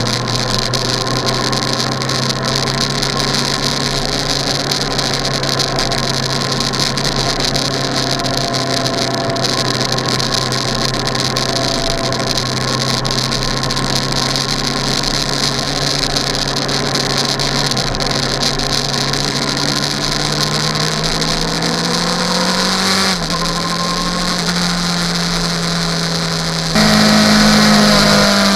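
A vehicle engine running steadily under a rushing hiss. Near the end its pitch climbs, drops back, then jumps up and gets louder.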